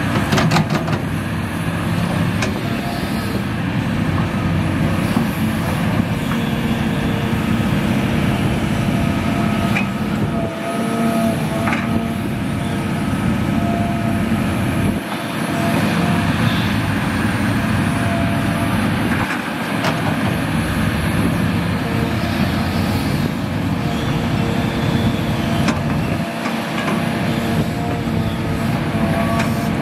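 Diesel engine and hydraulics of a Hitachi Zaxis 350H excavator running steadily while it loads soil into a dump truck. The low end of the engine note drops briefly every four to seven seconds as the load changes.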